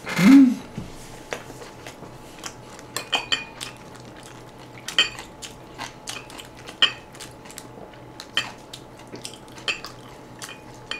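A metal spoon clinking and scraping against a rice bowl, a series of sharp clicks spaced about a second apart, as rice is scooped and mixed with braising sauce. A short hummed 'mm', the loudest sound, comes at the very start as a spoonful goes into the mouth.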